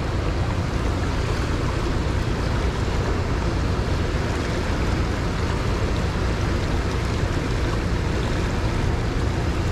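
Steady rush of a fast, shallow creek riffle, with a heavy low rumble of wind on the microphone.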